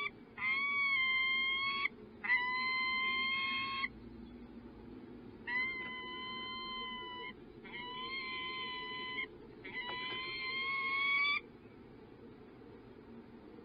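Peregrine falcon calling: a series of five long, drawn-out calls, each about a second and a half, some bending slightly upward at the end. The series stops about eleven seconds in.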